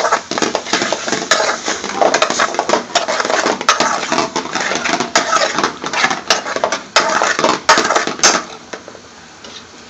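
A metal utensil scraping and clattering against a pan in quick, continuous strokes as pre-cooked chicken tikka is stirred into the masala sauce, stopping about eight seconds in.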